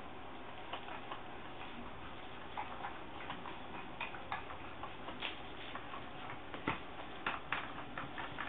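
Irregular small clicks and taps of plastic skimmer parts being handled and hand-tightened, with a few sharper knocks in the second half, over a steady low hiss.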